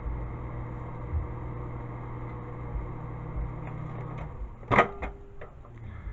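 Microwave oven running with a steady hum that stops about four seconds in, followed by a loud clunk and a few lighter clicks, like the door latch opening.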